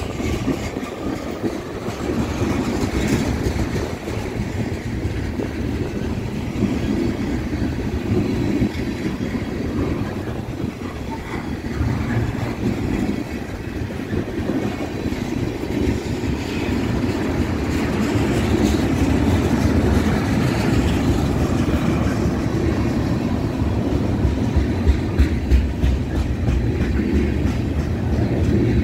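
BNSF freight train cars rolling past with a steady low rumble, getting somewhat louder in the second half, with a few sharp wheel clacks near the end.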